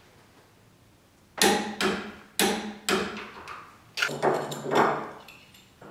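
Ratchet wrench working on an engine-mount bolt: a run of about eight sharp metallic clacks roughly half a second apart, starting about a second and a half in.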